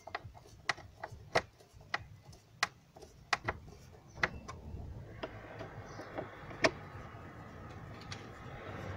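Cross-head screwdriver driving in the airbox lid screws: a string of small, sharp, irregular clicks and ticks. A low steady rumble builds in the background from about halfway through.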